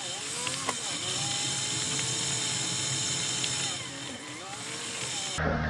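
Land Rover Discovery 3's TDV6 diesel pulling up a steep gravel track, heard from inside the cab: a whine that rises and falls with the revs over a steady hiss. Near the end the sound cuts abruptly to a louder low rumble.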